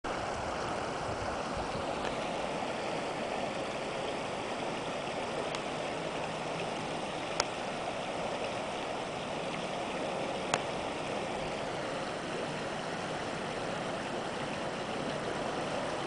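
Shallow, partly ice-covered creek running steadily over its bed, with two sharp clicks about seven and ten seconds in.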